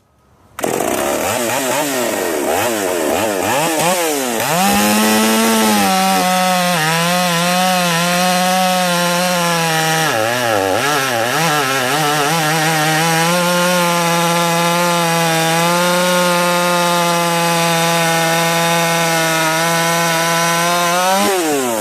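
Solo 656 two-stroke chainsaw catching about half a second in, revving unevenly for a few seconds, then held at full throttle and cutting through oak, its pitch pulled down under load with a brief dip partway through. Near the end the revs rise as the load comes off.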